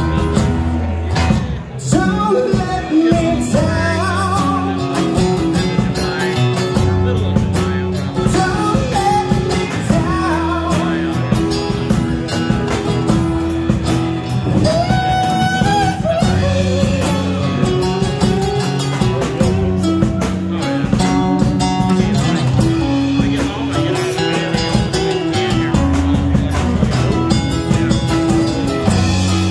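A live rock band plays: acoustic guitar, electric bass and drum kit, with a bending melody line over the top.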